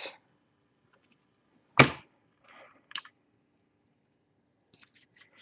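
Trading cards and a hard plastic card holder being handled on a table: one sharp click about two seconds in, a softer click about a second later, and a few faint light ticks near the end.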